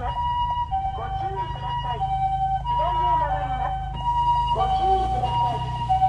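Japanese ambulance's two-tone siren, alternating a higher and a lower tone about every half-second or so in the familiar pee-po pattern, over a low rumble of engines in traffic.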